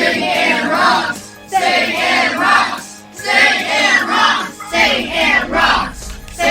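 A group of children's voices in unison, in four short phrases of about a second and a half with brief gaps between. A low rumble joins near the end.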